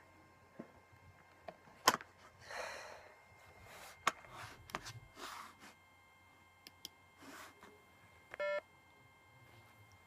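A few sharp clicks and short breathy hisses, then one short electronic beep about eight and a half seconds in.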